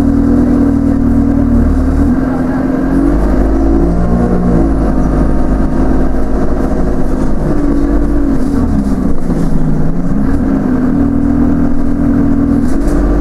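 Dennis Enviro 200 bus's diesel engine heard from inside the passenger saloon while the bus is under way. Its note holds steady at first, then rises and falls several times as the bus speeds up and slows.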